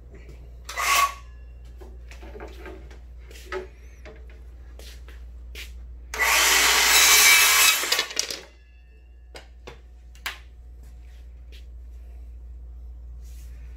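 Power saw cutting through a length of MDF cove moulding: one cut lasting about two seconds, starting about six seconds in. There is a short burst about a second in, and scattered knocks and clicks from handling the wood.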